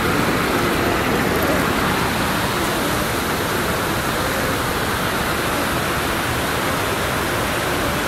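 Steady rush of a waterfall: an even wash of falling water with no pauses or changes.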